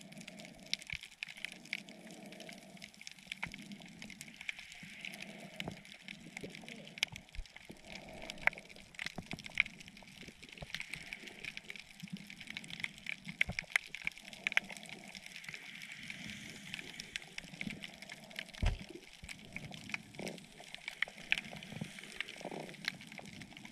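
Underwater sound picked up by a GoPro in its housing: a steady watery hiss with many sharp clicks and crackles scattered throughout, and a soft, low swell of water noise rising and falling every second or so.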